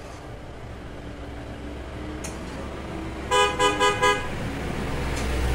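Vehicle horn giving about four quick toots a little past the middle, over a low engine rumble that grows louder toward the end.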